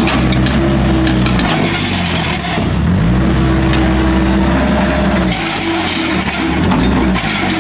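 Kobelco SK50 mini excavator's diesel engine running under hydraulic load, its note sagging and recovering twice as the boom and bucket work. A few faint knocks of broken asphalt can be heard.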